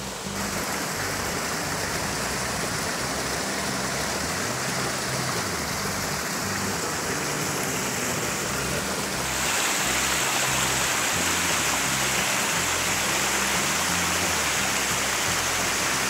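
Steady rush of a waterfall and stream pouring over bare rock slabs, with no separate splashes or knocks. It gets louder and hissier about nine seconds in.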